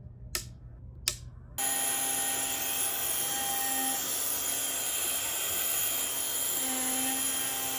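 Two clicks of the switch on a SainSmart 3020-PRO Ultra desktop CNC router's control box, then its spindle starts running at high speed milling an aluminum block: a steady high whine over a dense even noise.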